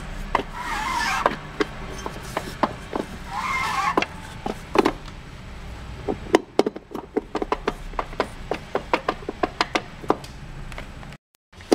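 Light metallic clicking and rubbing of an E4OD automatic transmission's planetary gear set being turned by hand to line up its splines and teeth as it is worked down into the case. Two scraping rubs come in the first few seconds, and the clicks grow quicker and denser through the second half.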